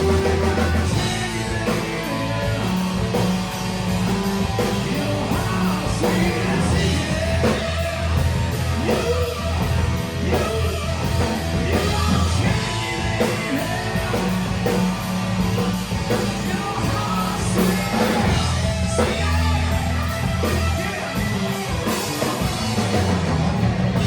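A live rock band plays a hard rock song, with electric guitar, bass and drum kit, and a voice singing over them.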